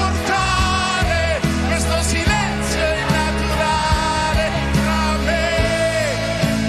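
A man singing a pop ballad with band accompaniment, holding long, wavering notes over a steady bass.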